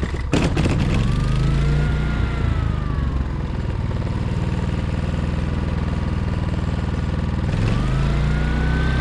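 Briggs & Stratton Q6500 inverter generator engine catching about half a second in and running on choke after a cold start, its speed rising and easing off, holding steady, then rising again near the end.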